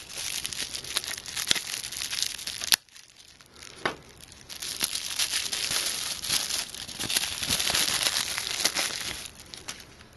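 Pink anti-static bubble-wrap bag crinkling and crackling as gloved hands handle it and open it. There is a sharp snap just under three seconds in, a short quieter spell, and then more crinkling.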